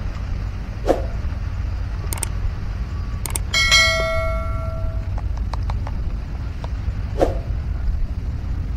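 Subscribe-button sound effect: a quick pair of clicks about three and a half seconds in, then a single bell-like ding that rings out and fades over about a second. Under it are a steady low rumble and a few faint clicks.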